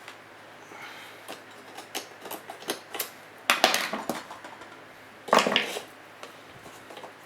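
Tools clicking and scraping against the metal of a sealed surplus ammunition 'spam can' as it is worked open: scattered light clinks, then two louder scrapes about three and a half and five and a half seconds in.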